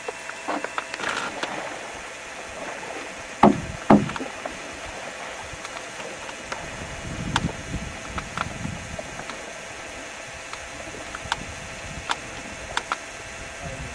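Two knocks about half a second apart against a canoe, followed by lighter taps and clicks, over a steady hiss.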